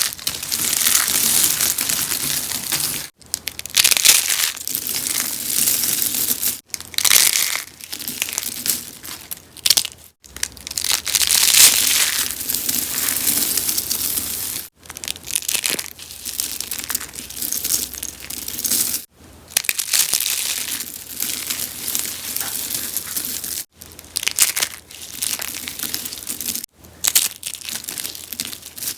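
Rose-shaped soap being crunched and crushed: a continuous crisp crackling crunch. It breaks off for a split second every three to four seconds.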